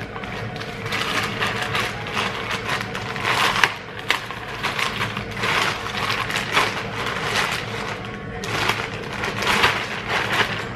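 Cardboard box and packaging being handled and opened: irregular rustling, crinkling and scraping, over a steady low hum.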